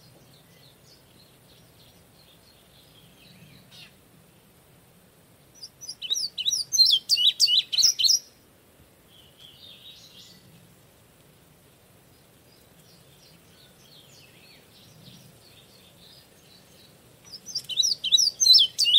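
Indigo bunting singing: a loud, two-second phrase of quick, repeated high notes about six seconds in, and another starting near the end, with fainter bird song between.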